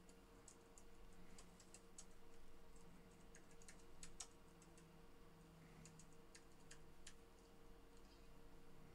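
Near silence with faint, irregular clicks of computer keys, over a faint steady hum.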